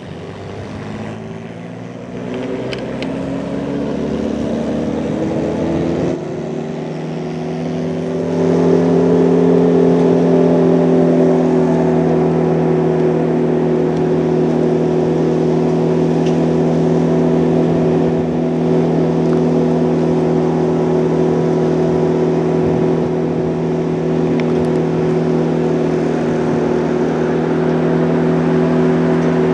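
Diesel engine of an approaching GE AC44C6M locomotive, rising in pitch over the first eight seconds or so as it comes up in power, then running steady and loud.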